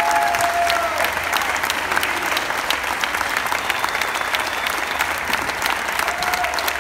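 Audience applauding: dense, steady clapping from a full theatre crowd.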